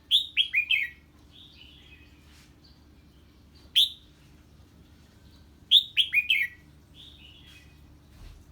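Red-whiskered bulbul singing its 'ché' challenge song, as keepers call it, in reaction to an unfamiliar bird. Two loud, short phrases of three or four quick downward-sliding notes, one at the start and one about six seconds in, with a single sharp note between and softer chirps in the gaps.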